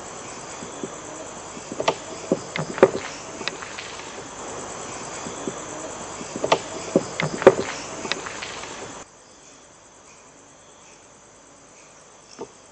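Crickets and other night insects chirring steadily over a raised hiss, with scattered sharp knocks: a cluster about two to three seconds in and another about six to eight seconds in. At about nine seconds the hiss drops away, leaving a fainter insect chorus and one more knock near the end.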